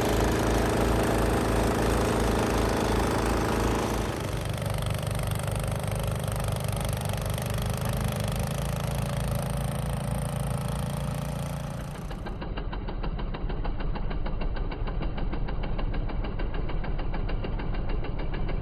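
Snow blower engine running steadily while clearing snow. Its sound shifts abruptly about four seconds in and again near twelve seconds.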